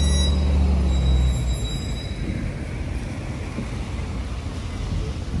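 Train running: a loud low electric hum, with a high thin whine above it, dies away after about a second and a half, leaving a steady rumble of the ride.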